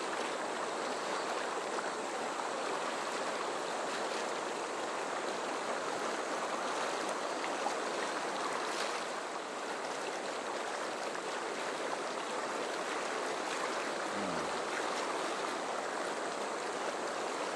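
Fast river water rushing steadily through rapids and whitewater, an even, unbroken rush.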